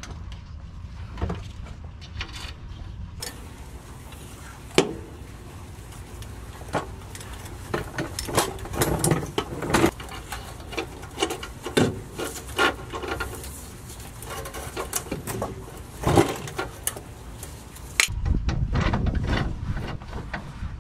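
Hand tools working exhaust downpipe bolts with a long socket extension: scattered metallic clicks and clinks, with a few sharper knocks.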